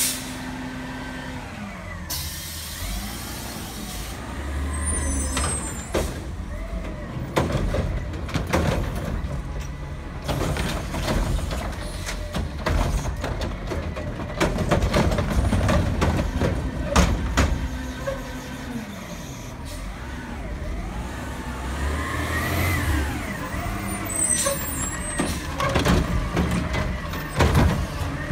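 Front-loading garbage truck at work: the diesel engine revs as the hydraulic lift raises and lowers with rising and falling whines. Yard-waste carts knock and bang as they are grabbed and tipped, and the air brakes hiss about two seconds in.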